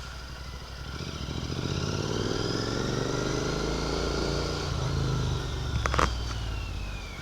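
Royal Enfield Continental GT 650's parallel-twin engine through a Red Rooster aftermarket exhaust, accelerating under way with its note rising gradually from about a second in. A short sharp click comes near six seconds in, after which the engine note eases off slightly.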